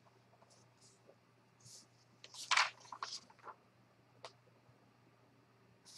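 Paper pages being handled and turned: short soft rustles, with a louder cluster of rustling about two and a half seconds in.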